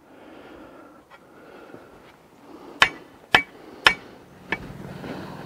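A long-handled digging tool working soil at the bottom of a hole: low scraping and crunching, with three sharp strikes about half a second apart midway and fainter knocks before and after.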